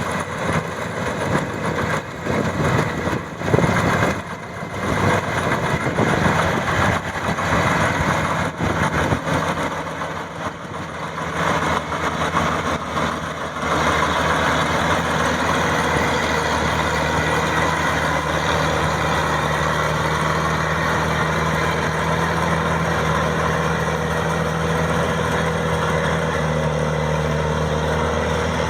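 Maxxi 85 combine harvester running, its engine drone mixed with the rattle and hiss of the machinery. The sound is uneven and choppy at first, then settles into a steady, even drone from about halfway through.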